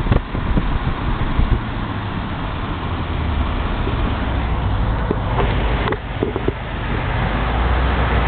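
Cars moving in traffic, heard from a moving car: a steady low engine drone with road noise, with a few brief knocks near the middle and the low drone swelling a little toward the end.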